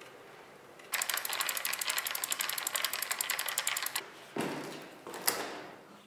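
E-bike rear freewheel on a hub motor, its pawls ticking rapidly while freewheeling, about a dozen clicks a second for about three seconds before it stops. A couple of louder knocks follow near the end.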